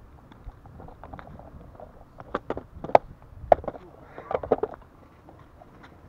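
Irregular sharp clacks and knocks, loudest about halfway through, with a quick cluster near the end, over faint wind noise.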